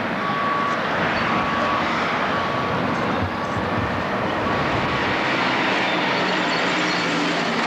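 Street traffic: a motor vehicle running, a steady loud noise, with a high beep repeating about once a second that stops about five seconds in.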